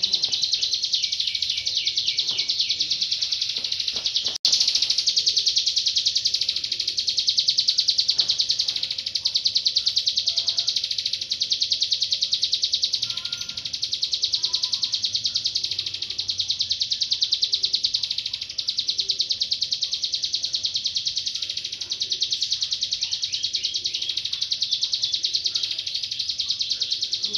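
Ciblek gunung (a mountain prinia) singing a long, unbroken, high-pitched trill of very fast repeated notes, with a brief cut-out about four seconds in.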